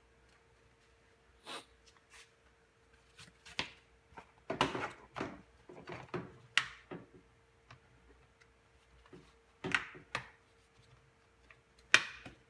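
Plastic tailgate trim panel being handled and pressed onto its clips: scattered knocks, clicks and rustles in about six separate bursts, over a faint steady hum.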